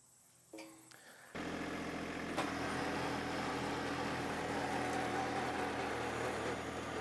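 John Deere 1025R compact tractor's three-cylinder diesel running at low revs, driving its rear-mounted 300 mm post-hole auger as it bores into the soil. The engine sound comes in suddenly about a second and a half in and then runs steadily, with a sharp click about a second later.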